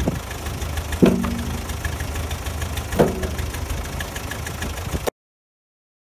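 1980 Case 580D backhoe's engine idling steadily while split firewood is tossed into its steel loader bucket, two logs landing with a ringing clunk, about a second in and again about three seconds in. The sound cuts off abruptly about five seconds in.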